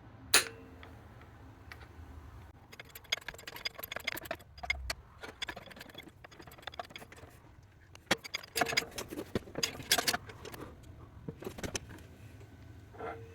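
Split bush being pressed into a metal bearing housing on a workshop press: a sharp metallic click about half a second in, then bursts of light metallic clicking and rattling around three to five seconds and again around eight to ten seconds in.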